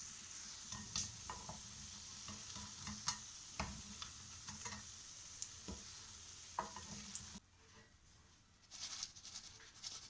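Potato fingers frying in hot oil, a steady sizzle with scattered taps and scrapes of a utensil stirring in the pan. The sizzle cuts off abruptly about seven seconds in, and a fainter crackle follows near the end.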